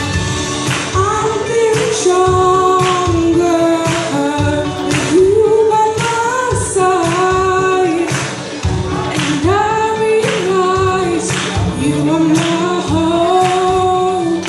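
A young woman singing a gospel song into a microphone over backing music with a steady beat.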